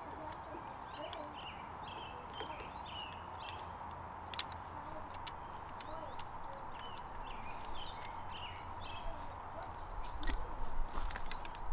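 Small birds chirping over and over, in quick falling notes. A few sharp metal clicks come from work on the motorcycle's brake lever, with a low rumble near the end.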